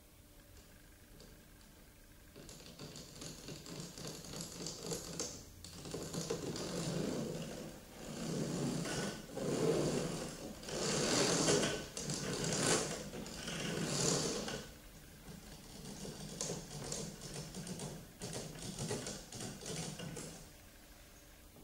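Rapid clattering of digital piano keys under the fingers, with no notes sounding. It comes in several bursts with short pauses, starting about two seconds in and stopping shortly before the end.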